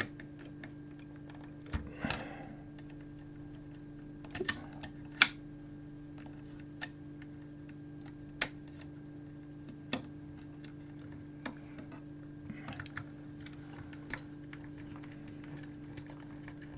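Scattered small clicks and taps of wires, parts and hand tools being handled while mains wiring is fitted to a switch and transformer, the sharpest tap about five seconds in. A steady low hum runs underneath.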